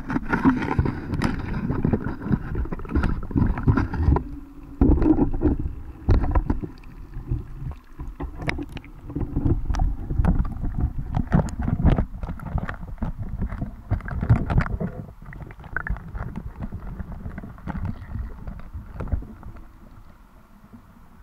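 Water sloshing around a GoPro's waterproof housing as it goes into the lake and sinks, heard through the housing as a muffled underwater rumble with irregular knocks and clicks. The sound dies down near the end as the camera settles on the bottom.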